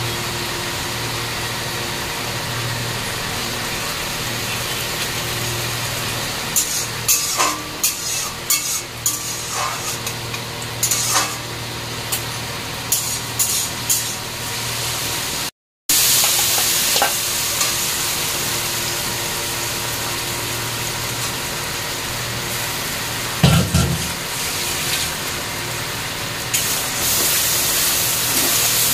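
Hot oil sizzling steadily in an aluminium kadai on a gas burner, with a spatula clicking and scraping against the metal pans as the food is stirred, and a single thump a little past the middle. Near the end the ground chana dal paste is being stirred in the hot oil.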